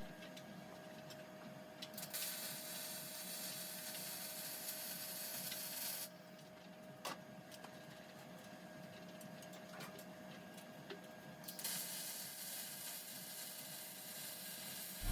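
Faint welding arc hissing in two runs of a few seconds each, with a quieter pause and a few light clicks between them.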